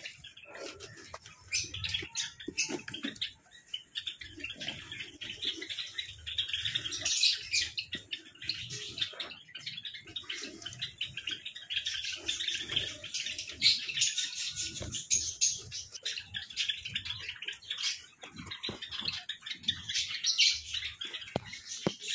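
Java sparrows chirping continuously in a busy chatter. Close rustling and knocks come from nesting straw and cardboard being handled.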